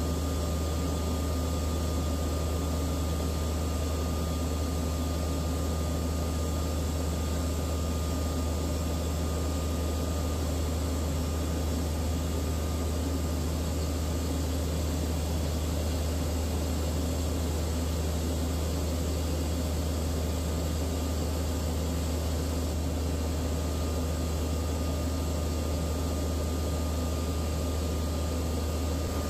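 Truck-mounted water well drilling rig running steadily while drilling with the big down-the-hole air hammer. It makes a constant low engine drone with a thin steady whine above it.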